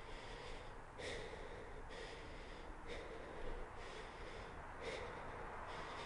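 A person breathing heavily and quickly, one breath sound about every second, over a faint steady hiss.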